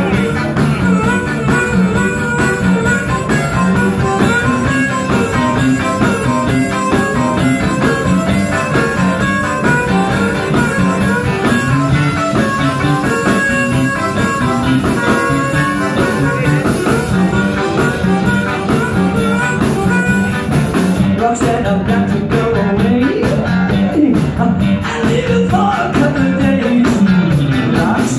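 A live band playing amplified electric guitars and a drum kit in a steady, continuous groove.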